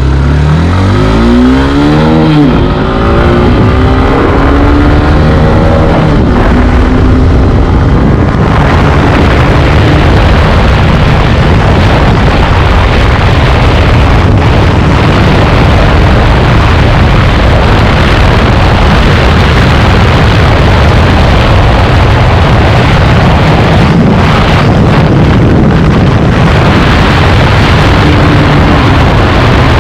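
Hero Xtreme 160R's single-cylinder engine accelerating hard through the gears, its pitch rising in several sweeps with shifts between them over the first eight seconds. After that the bike is held flat out, and the engine and wind noise merge into a dense, steady rush.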